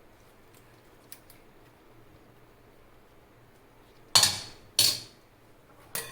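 Two loud knocks of a kitchen utensil against a dish, about half a second apart, each ringing briefly, then a lighter knock near the end.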